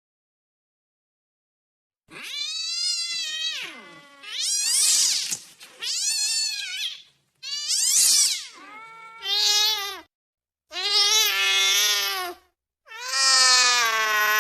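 Angry cat yowling: after about two seconds of silence, a series of about seven long, drawn-out yowls that rise and fall in pitch, with short pauses between them.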